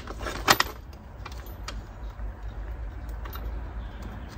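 Sharp metallic clicks and clinks as the wheel is fitted and screwed onto the front of a Korum chair-barrow frame, the loudest about half a second in, over a steady low rumble of nearby road traffic.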